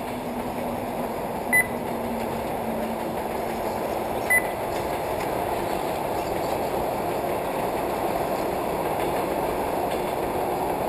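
Radio-controlled 2WD short-course cars running on a dirt track make a steady rushing noise that builds slightly. Two short electronic beeps sound, about three seconds apart.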